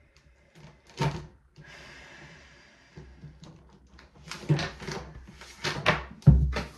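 Makeup items being handled and set down: a sharp knock about a second in, a short rustle, then a run of clicks and knocks with a heavier thump near the end.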